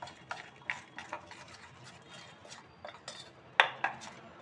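A spoon stirring thick chickpea-flour batter in a stainless steel bowl: irregular wet scrapes and light clinks of the spoon against the bowl, with one louder knock about three and a half seconds in.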